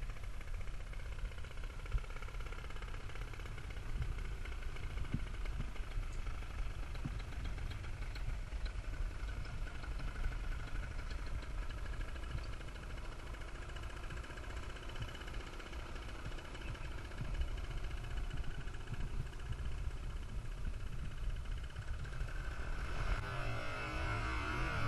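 Wind buffeting the microphone in an open field: a low, uneven rumble with a faint steady hum above it, and a brighter sound joining near the end.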